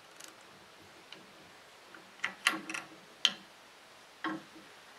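Light clicks and taps of metal hardware, about half a dozen at uneven intervals, as a small LED pod light is fitted by hand to a steel mounting plate.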